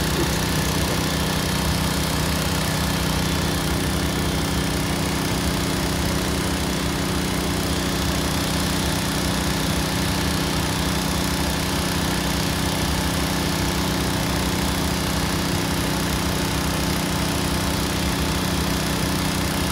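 Engine running steadily: a constant drone with a steady hum that does not change in pitch or level.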